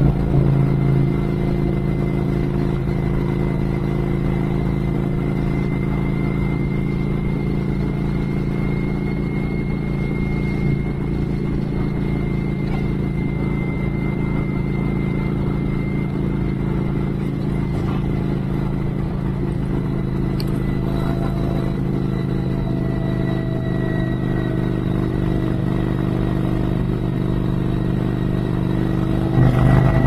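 Motorcycle engine running steadily at cruising speed on the open road, with tyre and wind noise under it; it gets louder briefly near the end.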